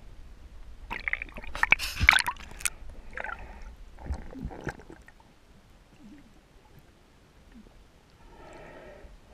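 Splashing and bubbling water stirred up close to an underwater camera by a snorkeler's kicks. It is loudest between about one and three seconds in, with a couple of shorter splashes after, then dies down to a faint low rumble.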